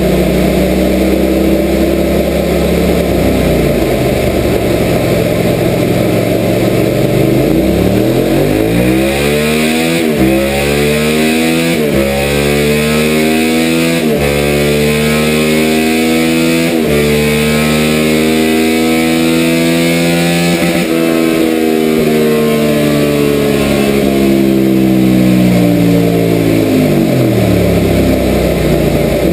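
Suzuki SV650's 645 cc V-twin engine on a rolling-road dyno, loud throughout. It idles, then revs up with four brief breaks as it changes up through the gears. It holds at high revs, then comes off the throttle and winds slowly back down to idle.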